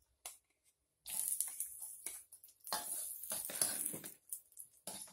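Chopped shallots and garlic sizzling in hot oil in a wok, stirred with a metal ladle. The hiss starts about a second in and swells and fades in uneven bursts.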